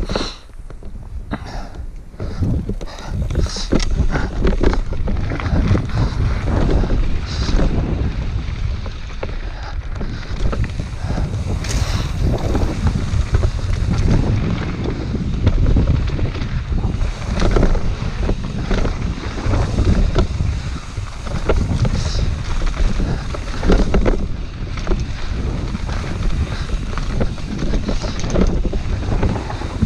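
Wind buffeting the camera microphone while a mountain bike descends a dirt and gravel trail at speed, with tyres rumbling over the ground and frequent short clatters and knocks as the bike goes over rocks and bumps.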